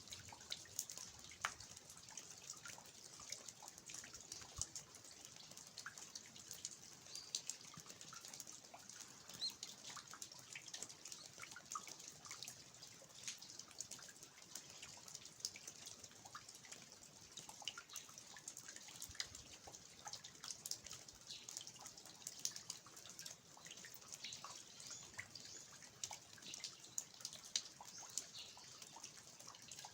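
Faint rain falling in a garden, with water dripping from the eaves of an old house: many irregular drips and patters over a light, steady hiss.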